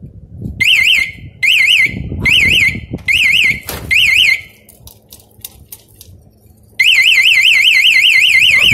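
Blue Fire aftermarket motorcycle alarm on a Honda CBR250R, tripped while armed. It gives five short warbling chirps, the warning stage, then about seven seconds in it breaks into its full continuous warbling siren.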